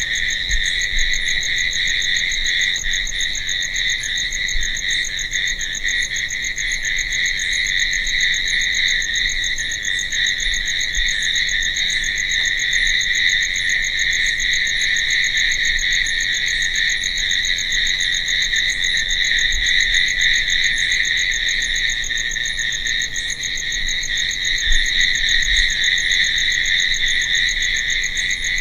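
Crickets chirping: a dense, steady chorus of high trills that runs on without pause.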